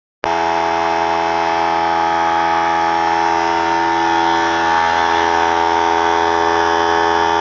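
A 3-gallon oilless pancake air compressor running, freaking loud: a steady motor drone with a pitched whine over a hiss. It cuts in suddenly about a quarter second in and holds level.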